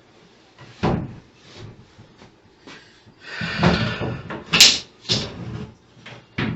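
A run of knocks and bumps with a scraping clatter about halfway through: a wooden door being handled and fitted into its frame.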